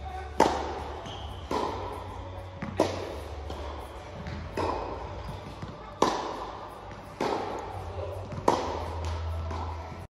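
Tennis ball struck back and forth with rackets in a rally, seven sharp pops about every one and a half seconds, alternating louder and fainter, each echoing in the large indoor hall.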